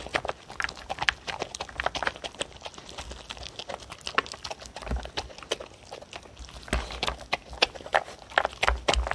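Two dogs eating from a plastic tray: an irregular run of quick clicks and smacks from chewing, licking and teeth knocking on the plastic, with a few dull thumps.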